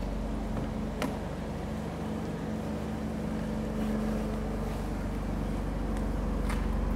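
Steady engine and road rumble of a moving vehicle, heard from inside the cabin, with a faint constant hum and a single click about a second in.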